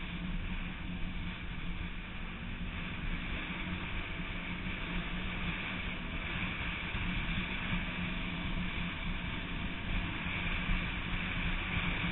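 Off-road vehicle's engine running steadily at speed, a constant drone, mixed with rushing wind noise on the onboard microphone.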